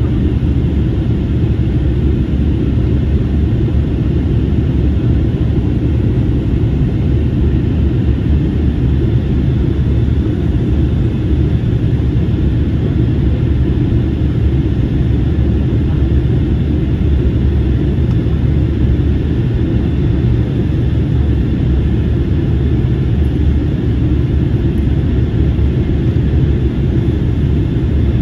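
Cabin noise inside an Airbus A321neo in flight: a steady, even rumble of airflow and the Pratt & Whitney geared turbofan engines, strongest in the low end, with no changes.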